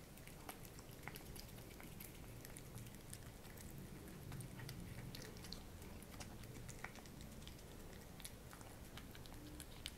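A cat chewing and biting broccoli florets off a plate: faint, irregular small clicks and crunches.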